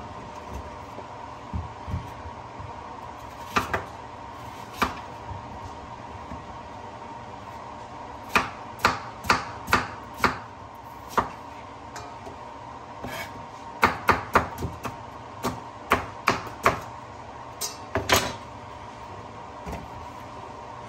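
Chef's knife chopping pumpkin on a bamboo cutting board: sharp knocks of the blade hitting the wood, a few at first, then runs of quick chops about two a second with short pauses.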